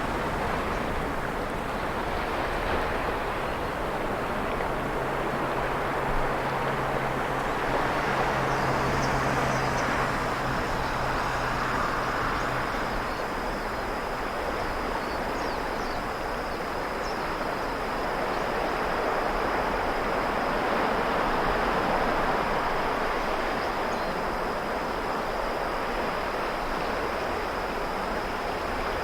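Sea waves breaking and washing in, a steady rush that swells and fades slowly, with a high steady insect trill joining about eight seconds in. A low steady hum runs beneath for several seconds in the first half.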